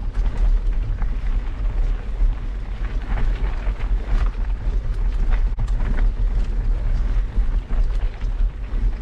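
Wind and jolts buffeting a bike-mounted action camera's microphone with a heavy, steady rumble, over the crunch and crackle of mountain bike tyres rolling up a loose, stony dirt track.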